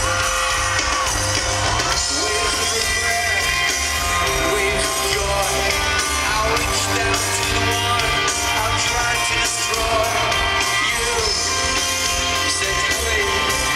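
Live rock band playing loud in a stadium, a singer's voice over a steady bass and drums, picked up from within the crowd.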